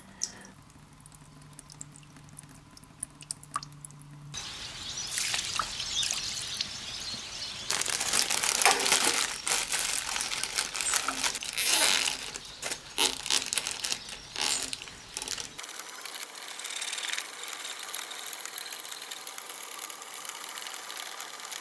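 Gloved hands working on a small mower engine: irregular rustling, scraping and clicking, loudest about eight to nine seconds in. Near the end, a steady hiss.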